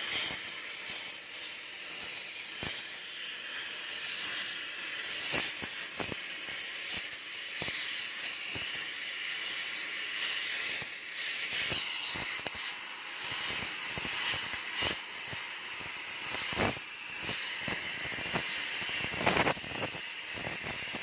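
Oxy-fuel cutting torch hissing steadily as its flame cuts through a steel excavator track chain at a link joint, with scattered sharp clicks and pops, the loudest a few seconds before the end.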